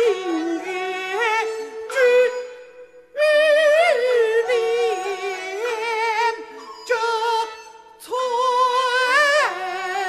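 Kunqu opera aria sung by a male comic (chou) role with instrumental accompaniment: long held notes with wavering pitch, broken by short pauses about two and a half seconds in and again near eight seconds.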